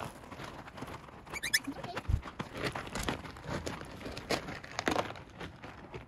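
Pellet litter in a potty tray crunching and rattling in irregular bursts as puppies are set down in it and shuffle across it, with a dull bump about two seconds in. A brief high puppy squeak sounds about a second and a half in.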